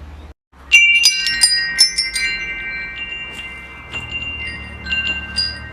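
Wind chimes struck in a quick cluster about a second in, their high tones ringing on and slowly fading, with a few lighter strikes again near the end. A low steady hum sits underneath.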